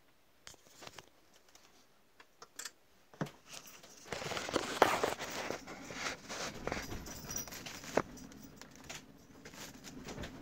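Vinyl LP surface noise as the stylus plays the lead-in groove: scattered clicks, then denser crackle and pops from about four seconds in, with a couple of louder pops and a faint low hum near the end, before the first track begins.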